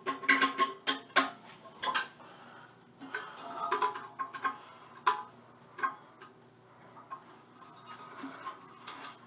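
Metal hardware and tools clinking and tapping in irregular clusters, with a faint steady tone under the clicks in the first two seconds.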